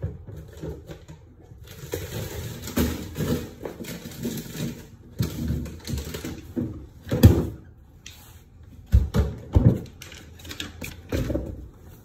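Items being handled at a refrigerator: irregular clunks, knocks and rustling, with one louder knock a little past the middle and two sharp thumps soon after.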